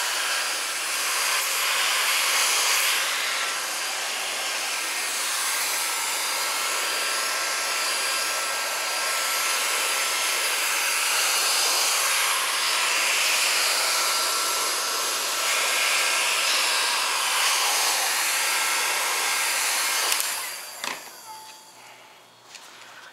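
An electric air blower running steadily with a rushing hiss, then shutting off and winding down about 20 seconds in, followed by a few light clicks and taps.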